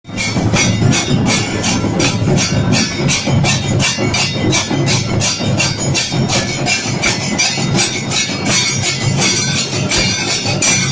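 Kailaya vathiyam temple percussion ensemble: many large drums beaten with sticks together with clashing brass cymbals. They play a loud, driving beat of about five strokes a second.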